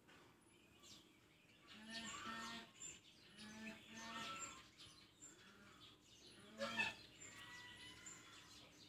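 Faint background ambience: small birds chirping high and briefly, and a few faint pitched calls. One short, louder knock comes about two-thirds of the way through.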